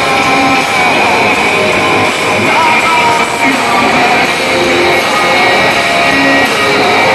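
Rock band playing loud live, with electric guitar to the fore.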